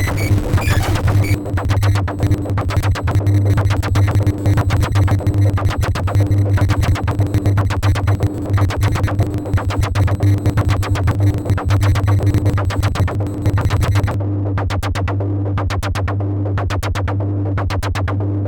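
Experimental click-noise music synthesized in Pure Data: dense rapid clicks over a steady low bass drone and a pulsing mid tone. About fourteen seconds in the high hiss drops away, leaving separate clicks over the drone.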